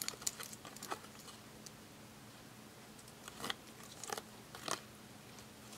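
A small plastic toy train handled in the fingers: faint, scattered clicks and taps, several in the first second and a few more later.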